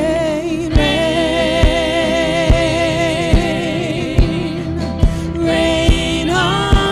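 Live gospel worship music: women singing sustained notes with vibrato over a band, with a steady kick-drum beat a little slower than one a second.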